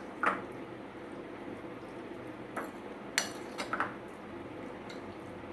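Prawns being mixed by hand into a thick masala in a glass bowl, with a few light clinks and knocks against the glass.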